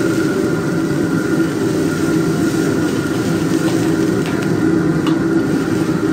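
Commercial gas wok-stove burner running at full flame, a steady loud rumble, under a wok of stock coming to the boil, with a faint steady high tone over it and a few light ticks about four to five seconds in.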